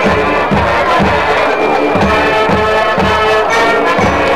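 High school marching band playing, brass holding sustained chords over a steady drum beat of about two beats a second.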